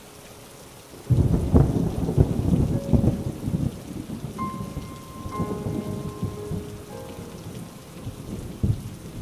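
Thunder over steady rain: a sudden loud peal about a second in that rolls on for a few seconds and fades, with a smaller clap near the end. Soft music with held notes plays under it.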